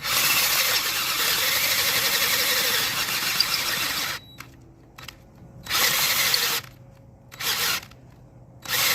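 Power drill boring out the hole in a washer so it fits the axle: one long run of about four seconds, then three short bursts.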